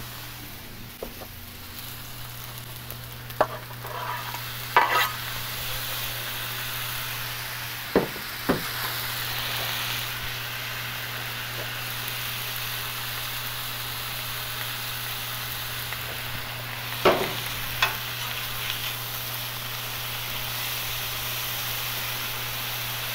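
Thinly sliced New York strip steak sizzling steadily on a Blackstone flat-top griddle. A few short, sharp clinks and scrapes come from metal spatulas on the steel cooktop, about a third of the way in and again about three-quarters of the way in. A steady low hum sits underneath.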